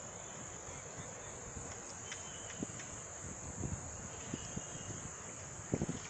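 Insects trilling in a steady, unbroken high-pitched chorus, with a few soft low thumps near the end.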